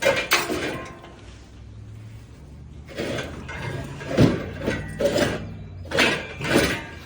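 Scrap metal clanking and clattering as pieces are handled and tossed, with a burst at the start and several sharp hits in the second half.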